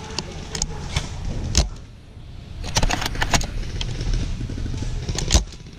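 Airsoft sniper rifle being shifted and brought up to the scope: a low rumble of handling noise with scattered sharp clicks and cracks. There is a loud crack about one and a half seconds in, a quick cluster of clicks around three seconds, and another loud crack near the end.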